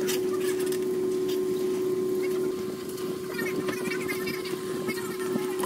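A steady hum with a single constant tone, with a few faint light clicks and faint distant voices in the middle.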